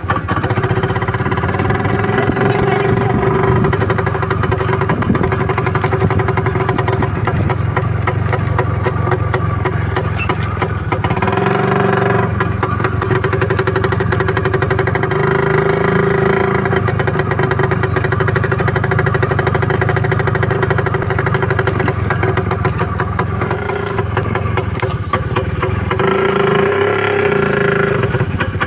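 IZh motorcycle's two-stroke engine running steadily, its pitch and level shifting a couple of times along the way.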